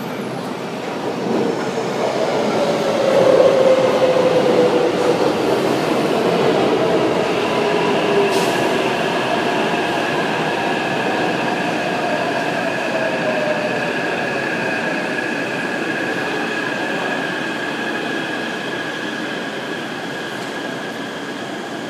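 Taipei Metro electric train pulling out of a station: the traction motors whine in several tones over the running noise of wheels on rail. Loudest a few seconds in, then slowly fading as it moves away.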